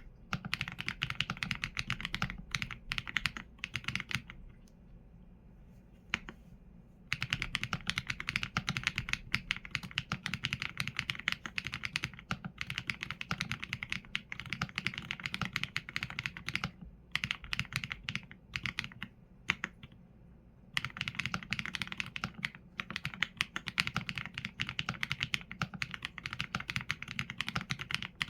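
Typing on a Qsenn A75 mechanical keyboard with Leobog Graywood V4 linear switches and PBT keycaps: quick runs of keystrokes, broken by pauses of a few seconds, the longest about four seconds in.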